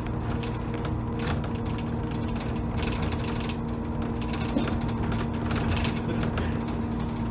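Dennis Trident double-decker bus running along the road, heard from the upper deck: a steady engine and drivetrain drone with a continuous light rattling from the bus body.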